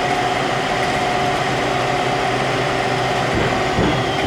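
ACRA SBS-500A automatic horizontal bandsaw running, with its blade motor and hydraulic pump giving a steady mechanical hum that carries two steady tones. A brief low thump comes about three and a half seconds in.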